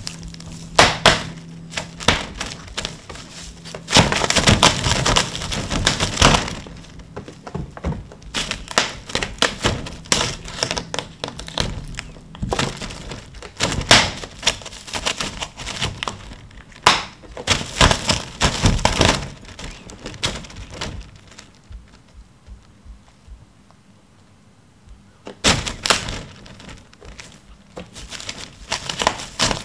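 Clear plastic film crinkling and crackling in irregular bursts as a cat claws and bites at it, with a quieter lull about three-quarters of the way through.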